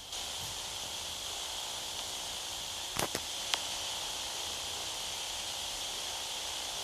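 Steady hiss from a VHS tape playing a silent stretch, with three short clicks about three seconds in.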